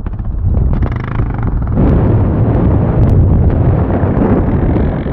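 Wind buffeting the microphone: a loud, continuous, uneven low rumble.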